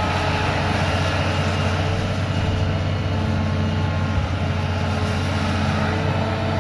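Excavator's diesel engine running steadily during bulk excavation: a low, even drone with a few faint steady whines above it.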